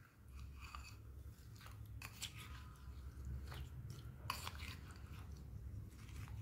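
A metal spoon stirring and squishing thick wet clay paste in a glass bowl: soft squelching with a few sharp clicks of the spoon against the glass.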